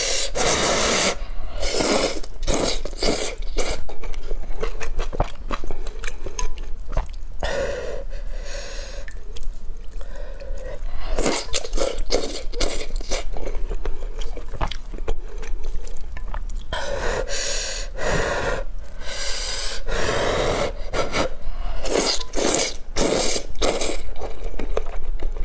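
A person slurping rice noodles out of spicy broth and chewing them, in a string of short and drawn-out slurps.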